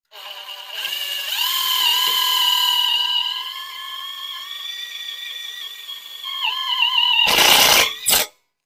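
Makita cordless impact driver's motor whining steadily as it drives a self-tapping screw into a steel trailer frame, the pitch wavering slightly under load. Near the end comes a short loud rattle, the impact mechanism hammering as the screw seats, then one brief final burst.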